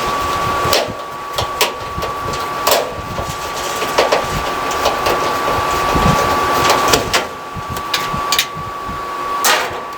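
A screwdriver backing a Phillips-head screw out of a clothes dryer's sheet-metal cabinet, with irregular metallic clicks and scrapes. A steady high-pitched hum runs underneath.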